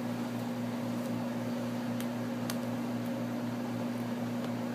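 A steady low hum with a hiss over it, and a few faint clicks about two seconds in and near the end.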